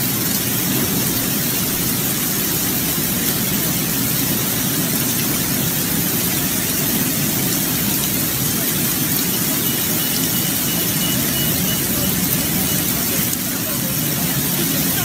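Heavy rain and rushing floodwater, a loud steady hiss.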